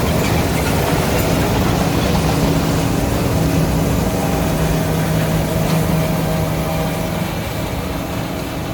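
John Deere S760 combine running in a soybean field: a steady engine drone with machine noise, slowly growing quieter over the last few seconds.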